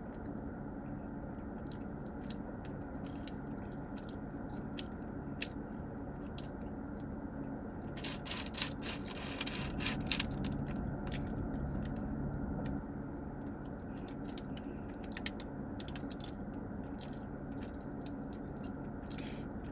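Close-up chewing and biting of a soft pretzel twist and a hot dog, with scattered clicks and a dense patch of crackling about halfway through, over a steady low hum in the car cabin.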